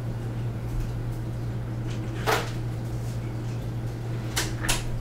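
A door being opened and shut: a sharp click of the latch about two seconds in, then two quick clicks near the end, over a steady low hum.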